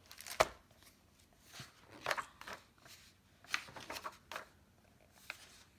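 A hardcover picture book being opened and its pages turned by hand: a sharp tap about half a second in, then several short papery swishes and rustles.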